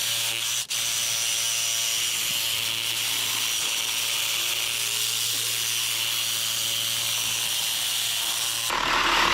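Reciprocating saw cutting through steel, running steadily with one brief stop near the start and a louder, rougher stretch near the end. The metal-cutting blade is worn and due for replacement.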